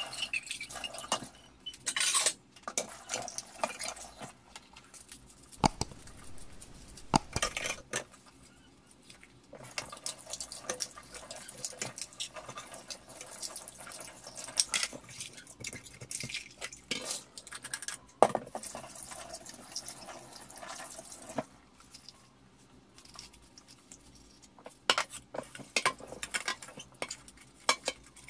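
A plastic water jug and its lid being washed in a stainless steel sink: tap water running, with repeated knocks and clatter of the plastic against the steel, and soapy rubbing on the jug near the end.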